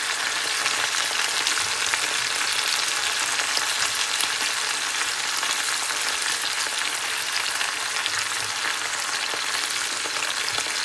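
Oil sizzling steadily in a hot cast-iron skillet around a whole chicken, with scattered faint crackles as leek and potato pieces are tucked in.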